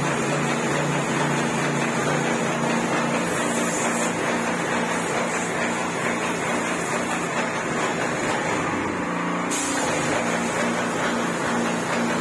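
Putty spray machine running steadily, with a low hum and an even hiss, as wall putty is sprayed from its gun onto a wall. The sound changes abruptly about nine and a half seconds in.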